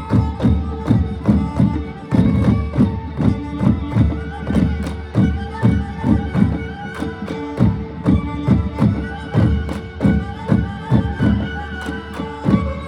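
Manipuri traditional drumming, probably pung drums: a dense stream of fast drum strokes, several a second. Over it run a held steady tone and a wavering melody line.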